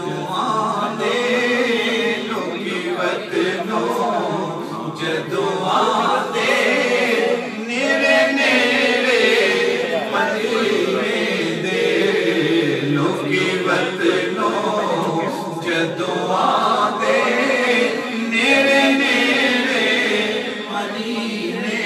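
A man singing a devotional naat unaccompanied into a microphone, his voice gliding and ornamenting in long phrases with short breaks between them.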